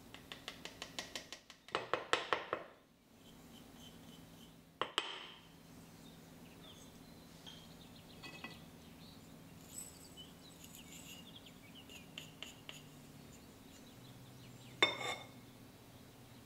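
Kitchenware clinking: a metal whisk and small dishes knocking against a ceramic bowl as they are handled. It opens with a run of quick light ticks, then a louder rattle about two seconds in, with single sharp knocks around five seconds and again near the end.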